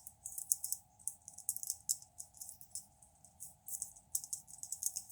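Plastic clicking and light rattling of a Transformers action figure being handled and its parts turned: an irregular run of small, quick ticks.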